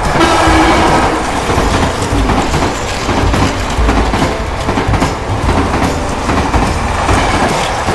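Plarail battery-powered toy train running over plastic track: a steady, dense rattle of its small motor and wheels that starts abruptly.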